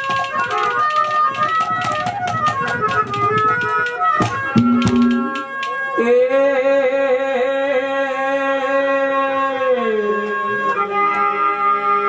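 Live folk music accompaniment. Quick hand-drum strokes run over a steady melodic instrument for the first four seconds, then the drumming stops and a long held melodic note comes in at about six seconds and drops lower around ten seconds.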